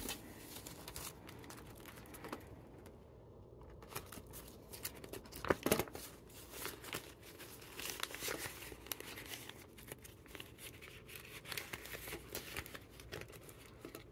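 Paper dollar bills and the plastic envelope pages of a budget binder rustling and crinkling as cash is tucked into an envelope and the pages are turned, with scattered light clicks and a louder rustle about five seconds in.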